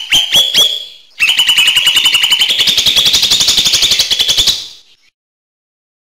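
Cucak hijau mini leafbird singing: a few sharp notes, a short break, then a fast rattling trill of sharp notes that stops about three-quarters of the way through.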